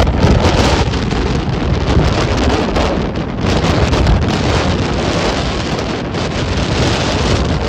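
Strong wind buffeting the microphone over rough sea surf, a loud continuous rush and rumble.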